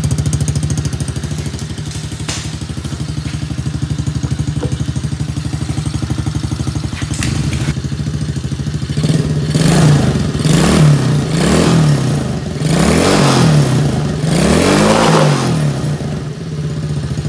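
Small single-cylinder four-stroke engine of a kids' ATV running just after starting on a freshly cleaned carburetor. It idles steadily at first, is revved up and back down about five times in the second half, then settles back to idle, running smoothly.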